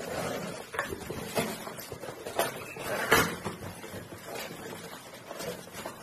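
Cardboard box flaps and plastic wrapping being handled while unpacking a stand mixer: irregular rustling and scraping with a few knocks, the loudest a little after three seconds in.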